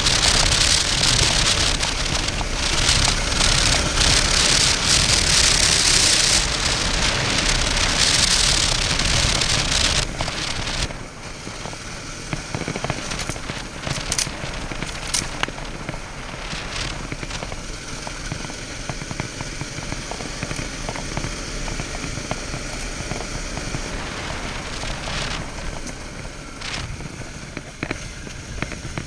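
Rushing wind and road noise on a motorcycle-mounted action camera, with scattered crackles and clicks. The noise drops sharply about ten seconds in and goes on more quietly, still with occasional clicks.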